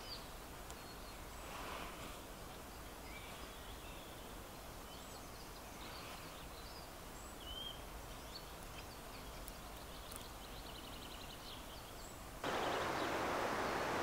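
Quiet woodland background with faint, scattered short bird calls and chirps. Near the end a louder, steady hiss takes over.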